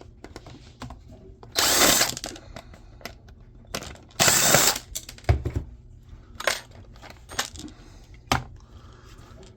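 Two short runs of a power drill/driver, each about half a second, about 2 and 4.5 seconds in, with clicks and knocks of handled plastic casing between them.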